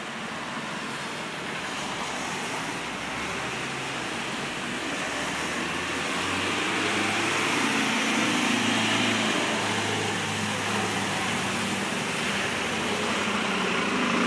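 Street traffic on a rain-wet road: passing vehicles with a steady hiss of tyres on water, and a low engine hum that grows louder in the second half as a van and then a bus go by close up.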